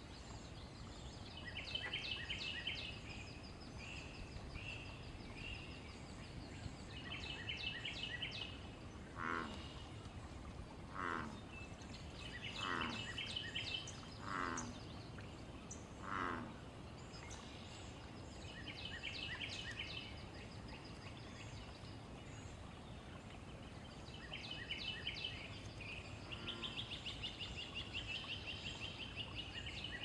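American bullfrog calling: a bout of five deep croaks about two seconds apart, each croak sliding down in pitch. A songbird repeats a short, fast, buzzy trill every five or six seconds throughout.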